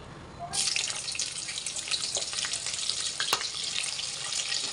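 Chopped carrots dropped into hot oil in an aluminium pot, setting off a sizzle that starts suddenly about half a second in and runs on with scattered crackles and pops.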